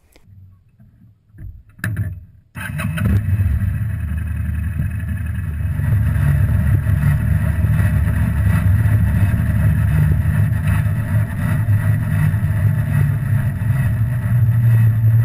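1995 Kawasaki Vulcan VN800 being ridden, heard from a camera mounted low by the rear wheel. The V-twin engine and road noise start about two and a half seconds in and carry a 'washing machine' noise from the worn-out drive chain.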